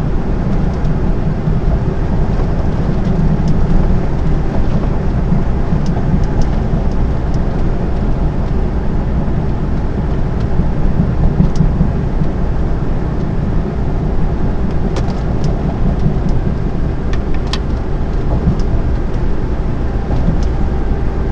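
Steady engine and road noise inside a lorry's cab cruising on the motorway, a low even rumble with a few faint clicks scattered through it.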